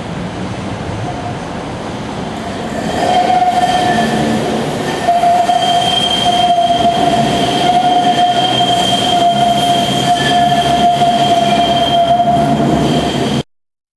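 Manchester Metrolink M5000 tram pulling away and taking a tight curve, its wheels squealing on the rails in a steady high tone that sets in about three seconds in and grows louder, over the tram's running noise. The sound cuts off suddenly near the end.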